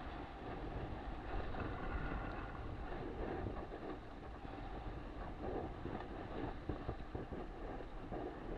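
Wind buffeting the microphone and water rushing past the hull of an RS600FF sailing dinghy as it picks up speed to about 13 knots. The sound is a steady, noisy rumble and hiss with no engine.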